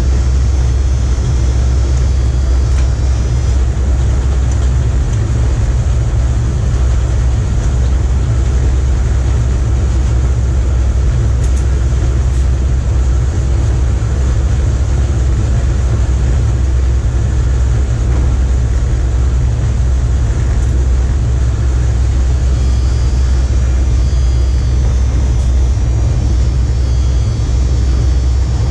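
Steady low rumble inside a locomotive cab running along the line: wheels on the rails and the cab's own running noise.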